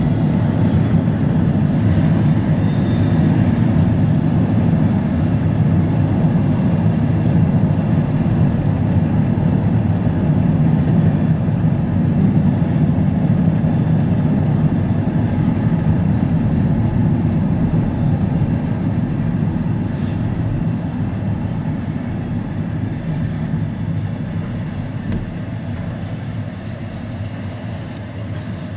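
Steady low rumble of a car driving on the road, mixed with a double-stack intermodal freight train rolling alongside. The rumble eases off over the last several seconds as the car slows.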